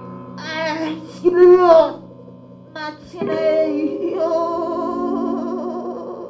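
Experimental improvised music: short, wavering sung vocal phrases with a strong vibrato over a steady low held drone, broken by a brief lull about two seconds in.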